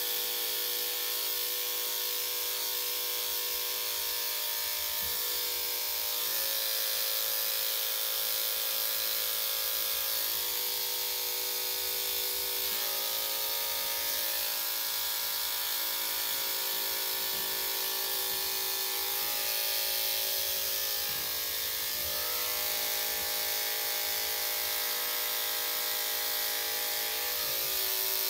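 Corded electric dog grooming clippers with a #10 blade running steadily as they shave a Shih-Tzu's face and head. The motor hum shifts slightly in pitch now and then.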